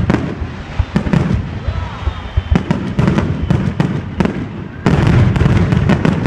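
Aerial fireworks bursting, a series of sharp booms and crackles. Near the end they come in a dense, rapid volley.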